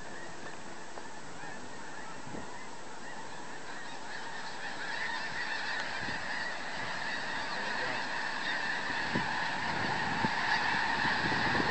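Dense chorus of many thousands of snow geese honking at once, swelling steadily louder from about four seconds in as the flock lifts off the roost pond into the air.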